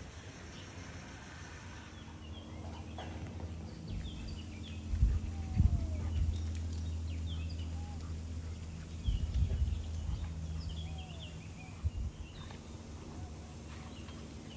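Small birds chirping and calling on and off over a steady low hum. A few low thumps break in about a third of the way in, again past halfway and once near the end.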